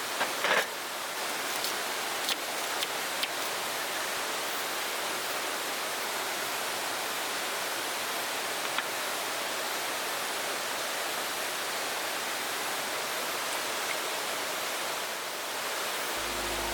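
Mountain stream rushing steadily, an even wash of running water, with a few light clicks in the first few seconds.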